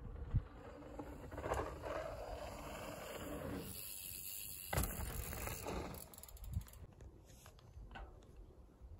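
A mountain bike rolling over a dirt trail, its tyres on the dirt, with an uneven low wind rumble on the microphone and a sharp knock a little under five seconds in.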